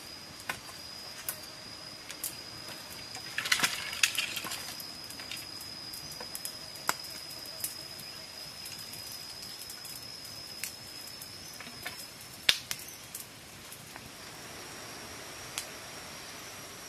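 An insect drone on one steady high note, which shifts slightly higher about twelve seconds in. Over it come scattered sharp clicks and a brief rustling burst about three and a half seconds in. The loudest click comes about twelve and a half seconds in.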